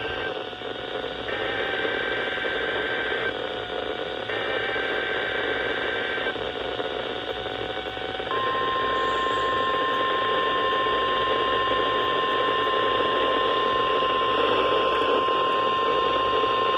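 NOAA Weather Radio weekly test received through heavy static: for the first several seconds the buzzy, warbling data bursts of the SAME alert header, then, about eight seconds in, the steady 1050 Hz weather alert tone starts and holds through the rest.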